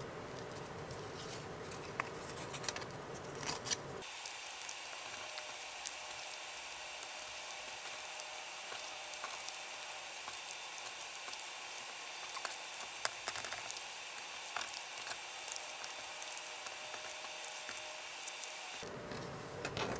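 Faint handling of paper: light taps and soft rustles as cut paper circles are picked up, stacked and laid on a cutting mat, over a steady low hiss.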